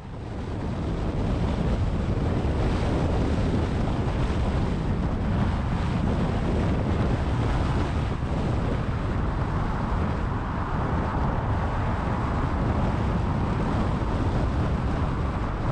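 Steady road and wind noise of a car driving, fading in over the first second.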